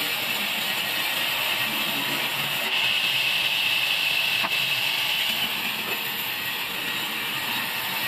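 Sawmill circular saw bench running with a steady, high hiss-like whine that gets a little louder from about three seconds in.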